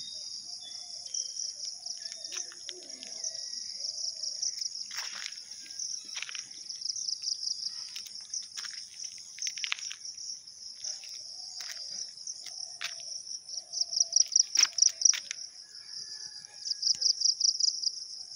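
Insects trilling steadily at a high pitch, a fast pulsing chirr that swells into louder pulsed bursts about two-thirds of the way through. Short sharp chirps or clicks now and then.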